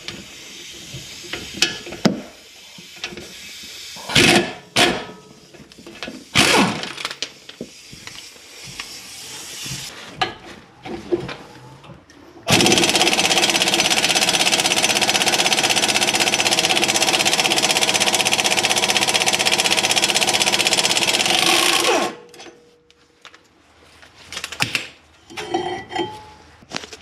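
Impact wrench hammering steadily for about nine seconds to break loose a tight caliper bracket bolt, then cutting off suddenly. Before it, a few sharp knocks and clanks of tools.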